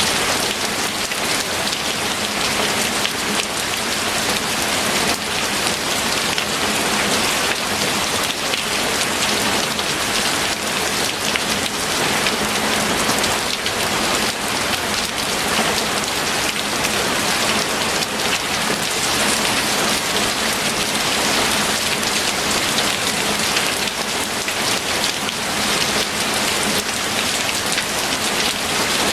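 Steady heavy rain with a dense patter of drops.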